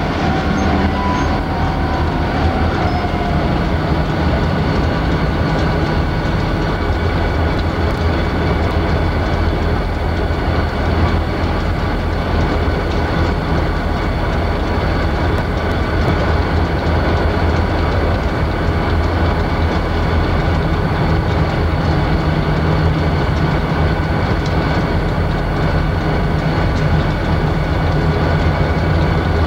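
Union Pacific double-stack freight train's diesel locomotives idling while the train stands for a crew change: a constant low rumble and hum with no break.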